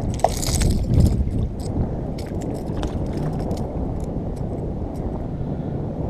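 Wind buffeting the microphone in a steady low rumble over shallow water, with a brief splash about half a second in and light clicks and ticks as a small spotted sea trout is handled and unhooked.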